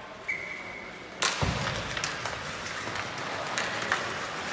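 Ice hockey rink: a brief steady high tone, then about a second in a sudden loud bang with a deep thud, like a puck or player slamming into the boards. Rink noise with scattered sharp clicks follows.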